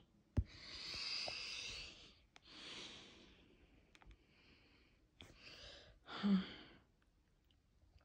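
A person breathing softly: about four long, airy breaths, with a faint click just after the start and a brief voiced catch in the last breath.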